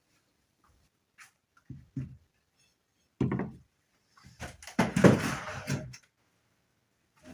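Dishes and furniture being handled at a dining table: a few dull thuds, then a clattering scrape lasting over a second, about four and a half seconds in.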